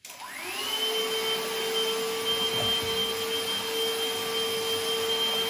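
ILIFE G100 cordless handheld vacuum switched on: its motor spins up over about a second, then runs at a steady high whine with a rush of airflow.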